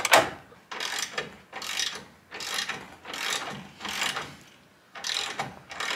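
Hand ratchet wrench clicking in repeated strokes, about one stroke a second, as a bumper mounting bolt is run in and tightened.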